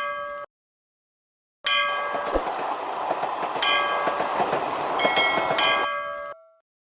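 Railroad crossing warning bell clanging. After a short gap a train runs past with a rushing noise while the bell strikes keep ringing over it, fading out near the end.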